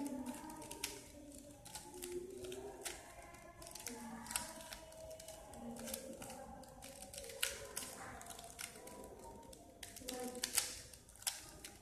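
Plastic clicks of a 3x3 Rubik's cube being turned, irregular and quick, layer after layer, over voices talking in the background.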